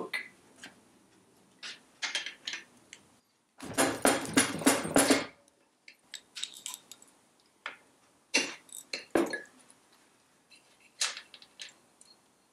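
Metal hand tools clicking and clattering while a socket wrench is worked on an engine's oil pressure relief valve. There are scattered sharp clicks and a dense rattling run of clicks about four seconds in.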